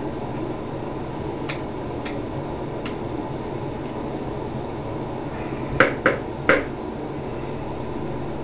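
Small clicks and taps of an Allen wrench and parts being worked on a paintball marker: a few faint ticks, then three sharper clicks in quick succession a little past halfway, over a steady hiss.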